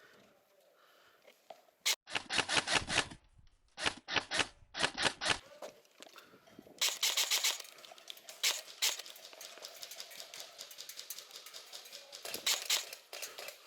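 Airsoft guns firing in rapid full-auto bursts: several short bursts of fast clicks about two seconds in, then longer, denser strings of fire from about seven seconds in.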